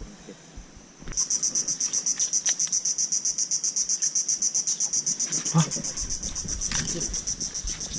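Insect calling: a loud, high, pulsing buzz, about ten pulses a second, that starts suddenly about a second in and keeps going.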